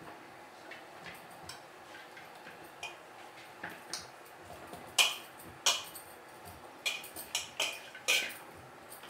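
Hands kneading chapathi dough in a steel bowl, the wrist bangles clinking against one another and the bowl in short sharp clicks. The clicks are faint at first and grow louder and more frequent about halfway through.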